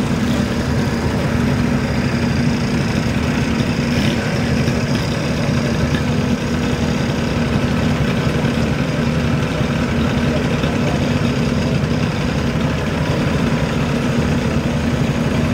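Engines of vintage military vehicles idling and running slowly in a parade queue: a steady, even low hum with no sharp changes.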